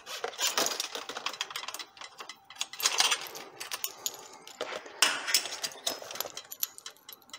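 Metal clinks and rattles of a two-piece rescue stretcher's metal frame, its locking pins and screw fitting being handled at the join, in irregular clusters.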